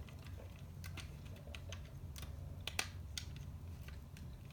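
Irregular light clicks and taps of plastic LEGO parts being handled, with a steady low hum underneath; the sharpest click comes a little past halfway.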